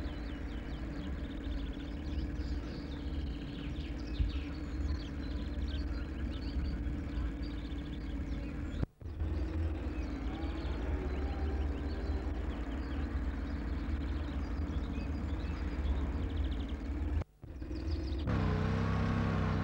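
Farm tractor engine running with a low steady rumble, birds chirping over it. The sound cuts out briefly twice, and near the end a steadier, clearer engine hum with an even pitch takes over.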